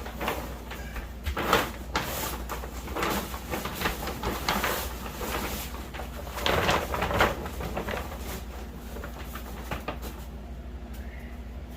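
Handling noise from a grow tent's fabric cover being unzipped and worked over the frame: irregular rustling and scraping bursts, loudest about a second and a half in and again around six to seven seconds in.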